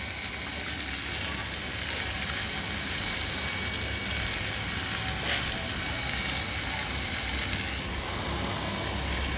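Onion, tomato and brinjal pieces sizzling steadily in oil in a clay pot over a wood fire, with a few faint pops.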